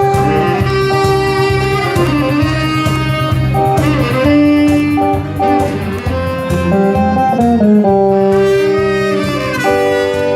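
Instrumental opening of a Korean ballad, a guitar playing the melody over a steady beat and backing band.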